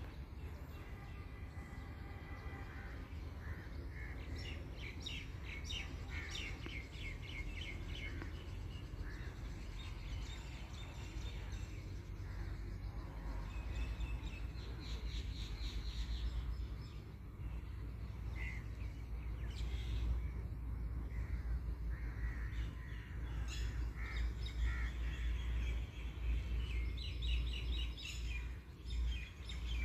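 Birds calling in quick series of short repeated notes, over a steady low rumble.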